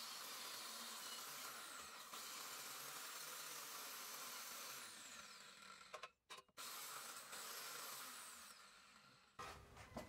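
Angle grinder with a cutting disc running through thick steel plate on a homemade cutting slider: a faint, steady hiss that drops out twice briefly a little after the middle and fades near the end, followed by a sharp metal clink.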